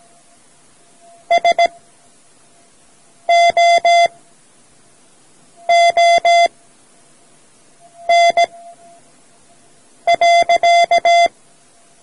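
Morse code sent as an on-off beep tone: five quick groups of dots and dashes about two seconds apart, the last a six-element group, the full stop that closes a practice sentence.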